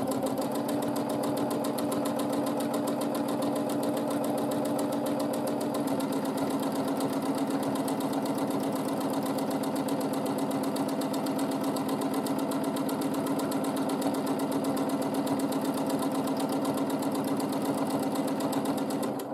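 Domestic sewing machine running steadily at speed for free-motion quilting, its needle stitching in a fast even rhythm with the darning foot hopping. The motor hum shifts slightly about six seconds in, and the machine stops right at the end.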